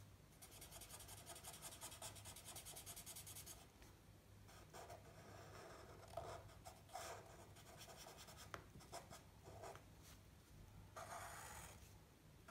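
Faint scratching of drawing on paper: a run of quick back-and-forth strokes for about three seconds, then separate short strokes with small gaps between them.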